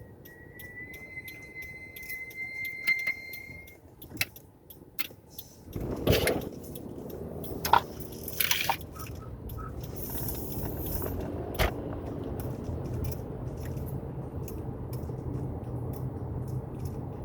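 High-pitched brake squeal from Hawk Performance Street Race race-compound brake pads on a 2018 Subaru Forester, a steady single tone for about three and a half seconds as the car brakes. After a few sharp clicks and knocks, the engine drone of the car's CVT rises about six seconds in and holds steady.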